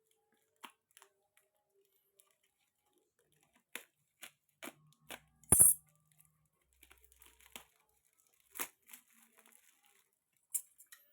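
A mail-order parcel being opened by hand: scattered rustles, crinkles and small clicks, with one loud, brief rip a little past halfway.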